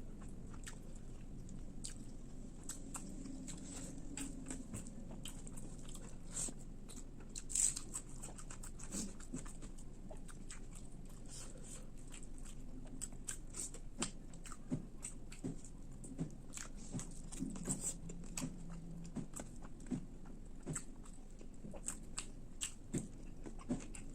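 Close-up mouth sounds of a person eating: chewing with frequent irregular wet clicks and smacks, one louder click about seven and a half seconds in.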